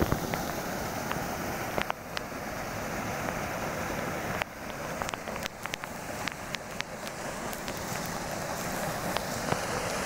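Small waterfall pouring into a rock pool: a steady rush of falling and splashing water, with scattered sharp ticks through it.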